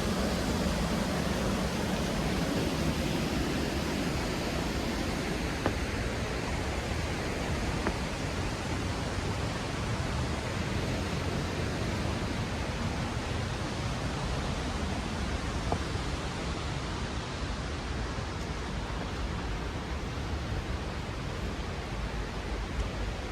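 Steady, even rush of creek water running over rocks.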